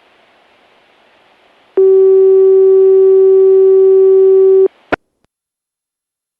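Analog municipal disaster-prevention radio transmission heard through a scanner receiver: radio hiss, then a steady electronic tone held for about three seconds that stops abruptly. A sharp click follows as the signal drops out, leaving silence.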